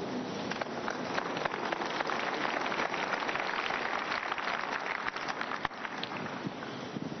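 Congregation applauding in a large hall: a dense patter of many hands clapping that builds about half a second in and thins out near the end.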